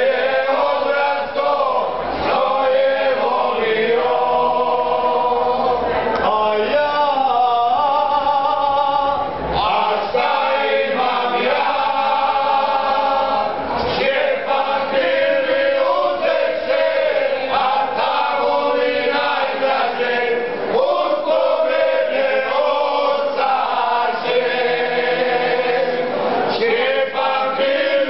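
A group of men singing a bećarac folk song together in full voice, with long held notes.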